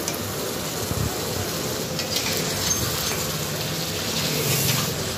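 Beef keema sizzling as it fries in a large karahi, stirred and scraped now and then with a perforated steel spatula. This is the bhuna stage, where the mince is fried down in its oil.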